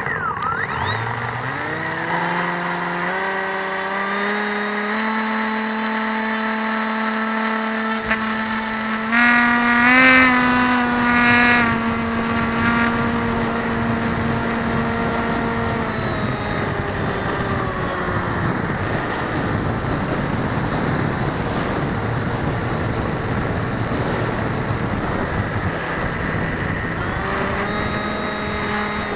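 Electric motors and propellers of a small RC aircraft, heard from its onboard keychain camera, with its propellers unbalanced. The motors spin up with a rising whine over the first few seconds, then hold a steady pitch that wavers with throttle changes. About halfway through, wind noise on the microphone swamps the whine for several seconds before the tone returns near the end.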